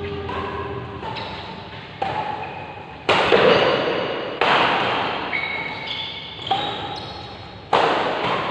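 Badminton rackets hitting a shuttlecock in a doubles rally: five sharp hits, roughly a second apart, each with a ringing tail in a large, echoing hall.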